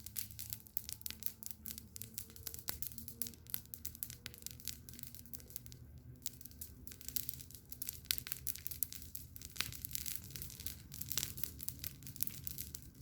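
Campfire burning, with dense irregular crackles and pops from the wood over a low steady rumble.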